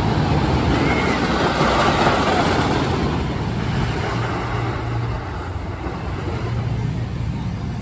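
Wooden roller coaster train rumbling along its wooden track, loudest in the first three seconds, then easing off.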